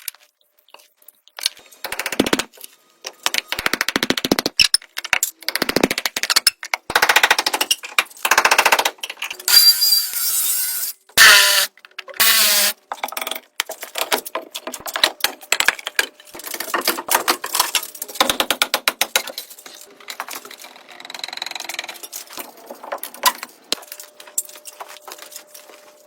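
Construction work: bursts of rapid rattling impacts, like a power tool or repeated hammering, with a few louder noisy bursts around the middle.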